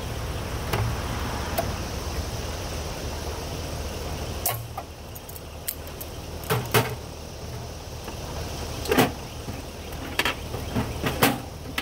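Thin steel of a cut safe lid being pried and bent back with locking pliers: a handful of sharp metal clanks and knocks, scattered through the second half. Under them is a steady low hum that drops off about four seconds in.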